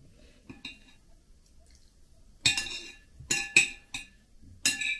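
Metal spoon clinking and scraping on a ceramic plate while scraping up the last of the cottage cheese: two faint taps in the first second, then a run of loud, ringing clinks from about two and a half seconds in.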